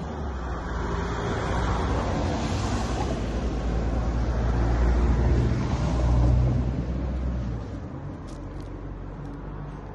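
A road vehicle passing by: a low engine and tyre rumble that builds to its loudest about five to six seconds in, then fades away.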